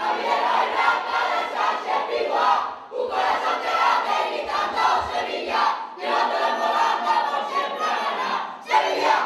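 A group of young voices shouting a chant together, in repeated bursts about three seconds long with short breaks between them.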